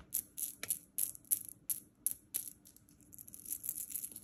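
Cadbury Gems candy-coated chocolate buttons clicking and rattling against each other in a hand: a run of sharp, irregular clicks, busiest about three and a half seconds in.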